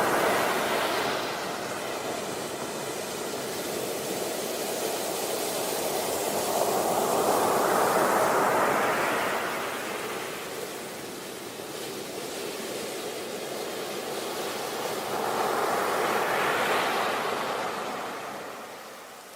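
Sea waves breaking and washing back in a steady wash of surf, swelling to a peak about every eight or nine seconds: once at the start, again about eight seconds in and about seventeen seconds in, fading near the end.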